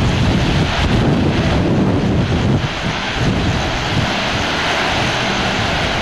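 Tortum Waterfall pouring: a loud, steady rushing noise with a heavy low rumble.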